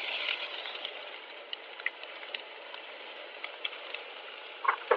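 Chopped onion hitting hot oil with cumin and mustard seeds in a small pan over high heat: a loud sizzle at the start that eases into a steady frying hiss, with scattered small pops and crackles.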